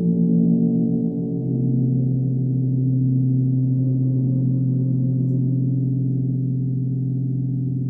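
Large suspended gong played with a round-headed mallet, drawing out a sustained, low drone with slowly beating tones. The drone settles onto a lower note about a second and a half in, with no separate strikes.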